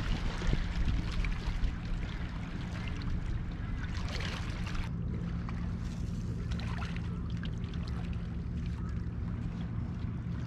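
Water lapping and trickling at the water's edge over a steady low rumble.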